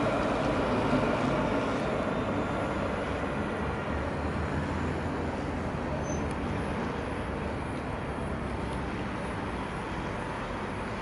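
Alstom Citadis tram running away from the listener and slowing into a stop, its running noise fading steadily over a low hum of city traffic. A brief high squeak comes about six seconds in.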